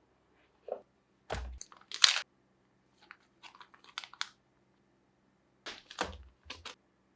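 Packaging being handled in an unboxing: short crinkling, rustling and tearing noises, with a dull thump about a second in and two more near the end.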